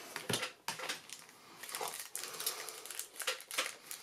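Magic: The Gathering trading cards being handled and set down on a cloth playmat: scattered soft taps, slides and rustles.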